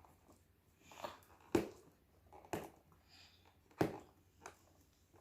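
Toy packaging being handled and opened: three sharp clicks or knocks, about a second apart, with faint rustling between them.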